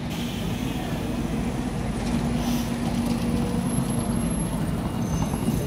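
A London double-decker bus drives up and passes close by, its engine giving a steady hum that drops away about four seconds in as it goes past.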